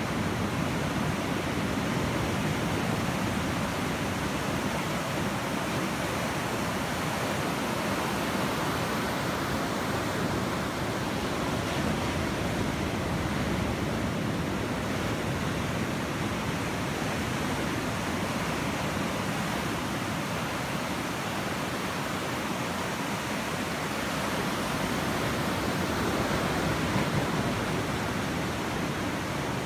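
Ocean surf washing onto a sandy beach: a steady, even rush of small breaking waves.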